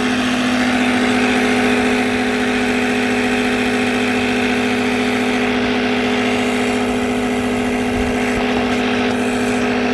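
DeWalt cordless tire inflator running steadily with an even hum as it pumps air into a go-kart tire, building pressure to force the tire beads out onto the rim.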